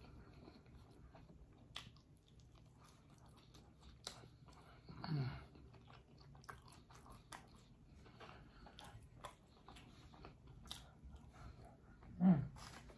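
Close-up chewing of a piece of sandwich bread, with soft wet mouth clicks. Two short low hums fall in pitch, about five seconds in and again near the end.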